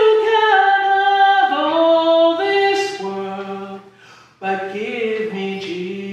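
A slow song: a voice singing long, held notes that step from pitch to pitch, with a short break between phrases about four seconds in and a low note sustained underneath in the second half.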